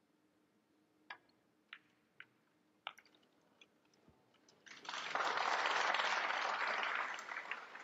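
Pool cue striking the cue ball and the balls clicking together, four sharp clicks within the first three seconds, followed about two seconds later by audience applause lasting about three seconds and fading out.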